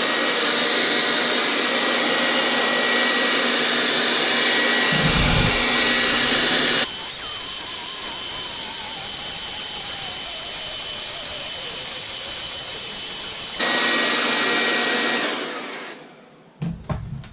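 Handheld hairdryer running on its medium setting, a steady rush of air with a high whine. About seven seconds in it abruptly drops quieter for several seconds, then returns. Near the end it is switched off and winds down, followed by a couple of handling knocks.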